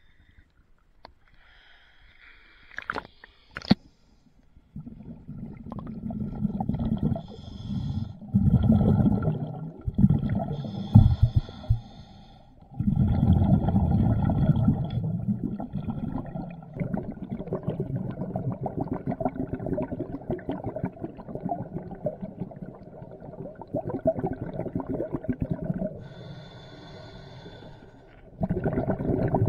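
Scuba diver breathing through a regulator underwater: long rumbling, crackling bubble exhalations broken by short hissing inhalations. A few sharp clicks come in the first few seconds, before the breathing starts.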